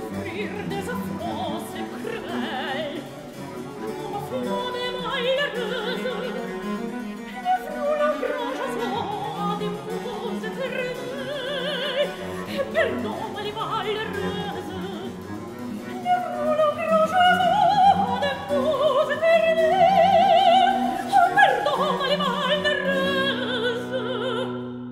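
Soprano singing a French baroque cantata with wide vibrato, accompanied by harpsichord and viola da gamba continuo. Her line climbs to its loudest held high notes about two-thirds of the way through. Near the end the voice stops, leaving a low held chord in the accompaniment.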